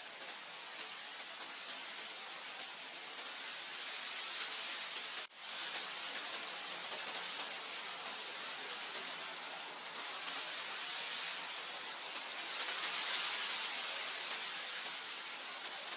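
Wind blowing across grassland: a steady rushing hiss that swells gently now and then, strongest near the end, with a brief dropout about five seconds in.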